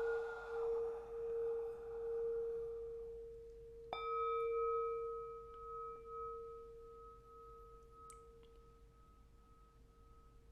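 A singing bowl rings with a steady, wavering tone while being rubbed around its rim, and the rubbing fades out. About four seconds in it is struck once and rings again with higher overtones, slowly dying away.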